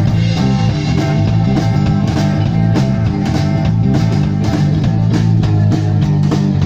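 Live rock band playing an instrumental passage: electric and acoustic guitars over a moving bass line, with a steady drum-kit beat.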